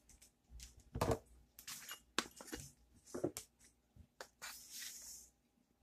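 Measuring and adding a teaspoon of salt to a bowl of flour: a few sharp clicks and taps of the spoon and salt container, and two short hissing pours of grains, the longer one near the end.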